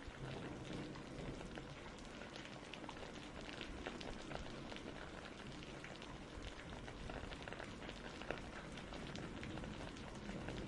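Steady rain falling, a dense patter of small drops with no pause.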